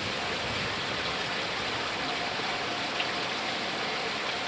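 Steady outdoor background hiss, with a faint hum coming and going from about halfway through.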